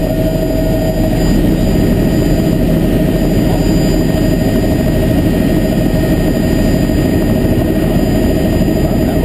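Helicopter in cruising flight heard from inside the cabin: a loud, steady drone of turbine and rotor, with a faint steady whine over it.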